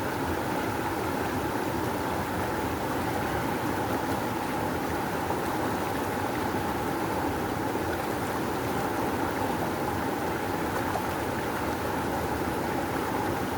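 Rushing river: a steady, powerful flow of water, even in level throughout.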